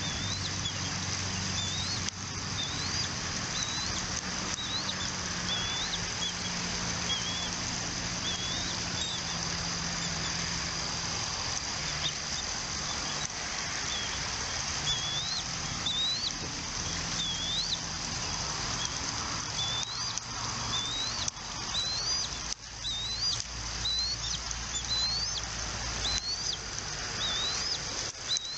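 Bald eagles at the nest giving a series of short, high, rising chirps, about one a second, with a pause in the middle of the stretch. Under them runs a steady high-pitched whine, with a few soft clicks.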